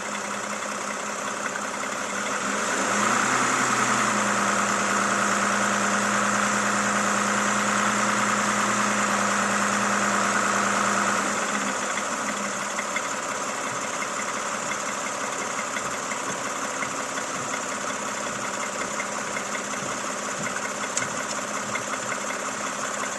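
Toyota Camry XV70's 3.5-litre V6 engine idling with a light regular ticking. About three seconds in it is revved up and held at higher speed for about eight seconds, then drops back to idle. The owner reports a knock in this engine at only 30,000 km.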